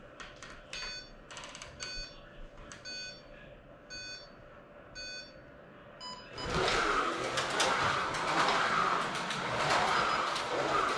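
Carrera Digital 1/32 slot car control unit sounding its start countdown: about five short electronic beeps a second apart, then a final beep about six seconds in. Right after it the slot cars start running around the track with a steady, much louder rushing whir.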